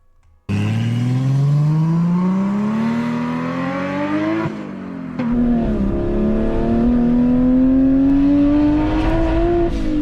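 BMW 135i turbocharged inline-six accelerating hard: the engine note climbs steadily through a gear, drops sharply at an upshift about halfway through, climbs again through the next gear and drops at another upshift near the end.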